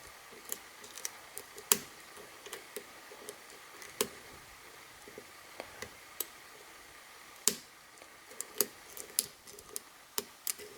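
Lock pick tapping and scraping on the pin stack inside a Brinks 50mm stainless steel padlock during picking: faint, irregular small metallic clicks, with a few sharper ones about 2, 4 and 7.5 seconds in.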